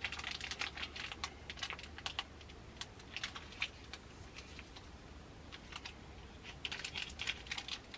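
Plastic snack wrapper crinkling and crackling in irregular bursts as it is handled and torn open.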